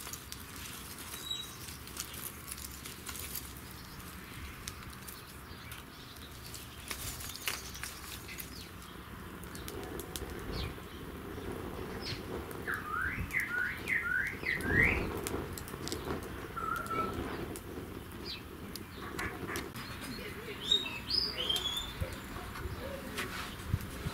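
Small wood fire crackling in a Bushbox XL folding wood-burning stove, with many short snaps and clicks. About halfway through a bird gives a quick run of five rising chirps, with more high chirps near the end, and a dull knock just after the bird's run is the loudest sound.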